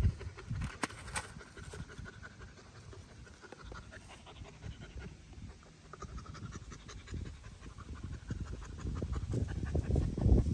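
Dog panting rapidly to cool off in hot weather, louder toward the end.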